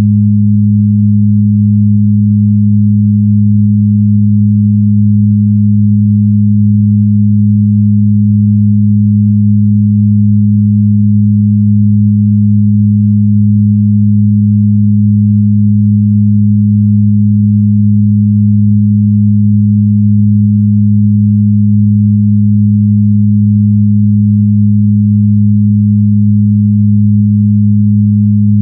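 Electronically generated low sine-tone 'healing frequency', held steady and unchanging, with a second tone about an octave above the first.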